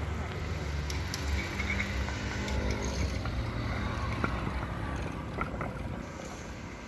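Street traffic: a motor scooter's small engine running as it passes through the junction, over a steady low traffic rumble that eases off slightly near the end.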